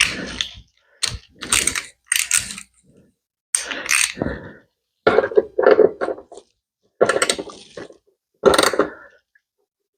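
Socket ratchet clicking in short bursts, about ten strokes, while a 10 mm bolt is being tightened.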